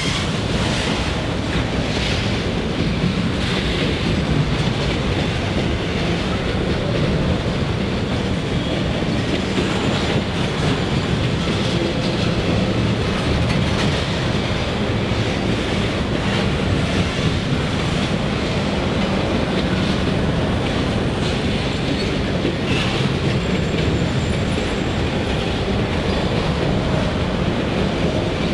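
Freight train of autorack cars rolling past: a steady rumble of steel wheels on rail with clicking over the rail joints.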